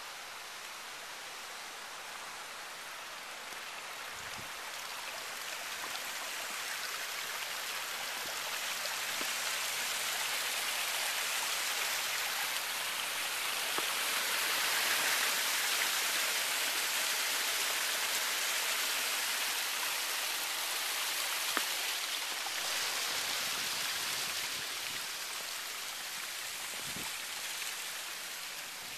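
Steady hiss of falling water that swells to its loudest about halfway through and then fades again.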